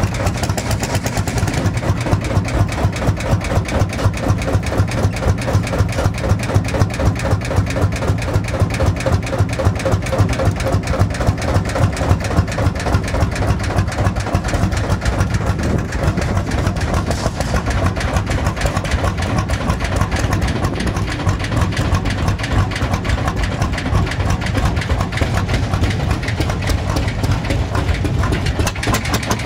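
Lanz Bulldog tractor's single-cylinder hot-bulb two-stroke engine idling with a steady, even beat.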